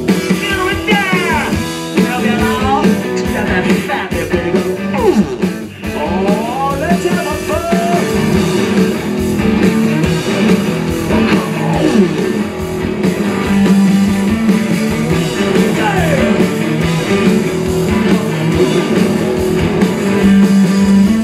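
A live blues-rock band plays loud, distorted music on two electric guitars and a drum kit, with sliding, wavering high notes in the first several seconds.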